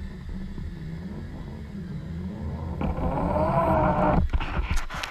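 Low, wavering drone of a distant boat engine heard underwater. About three seconds in, a louder rushing sound of water builds as a monofin diver kicks past close to the camera.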